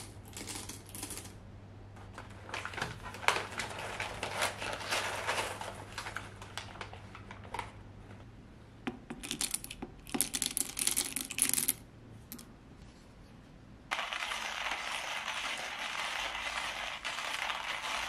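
Stainless steel hand coffee grinder being handled: clicks and rattles, with coffee beans poured into its hopper rattling against the metal. About fourteen seconds in, a steady crunching grind starts as the handle is cranked.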